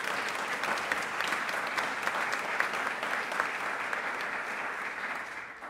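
Audience applauding steadily, a dense patter of many hands clapping that dies away at the very end.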